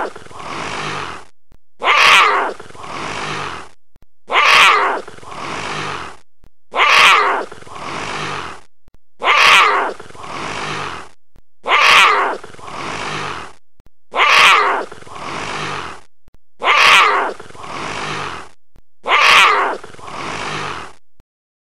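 Jaguar calling: the same call, loud at its start and trailing off into a quieter second part, repeated nine times about every two and a half seconds.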